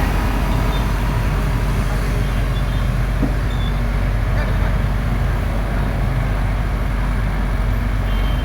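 An excavator's diesel engine running steadily, a constant low-pitched machine sound with no breaks.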